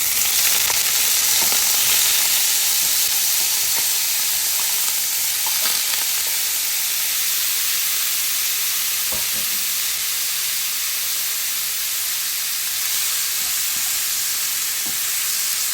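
Shrimp frying in hot olive oil in a pan: a steady sizzle that swells up at the start and then holds, with a few faint ticks.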